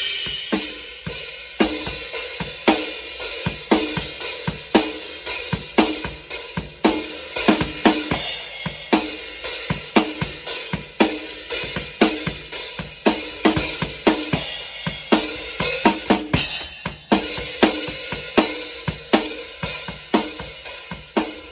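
Acoustic drum kit played with wooden sticks: a steady groove of cymbal strokes over snare and bass drum, with accented hits about once a second.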